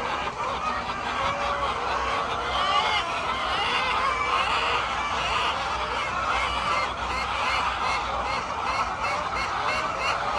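A flock of poultry calling all at once: many short, overlapping calls in a dense, continuous chorus.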